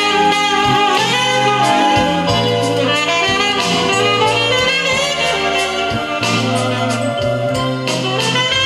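Music from a vinyl LP playing on a Dual 701 turntable: a jazz band with saxophone and brass over a walking bass line and drums.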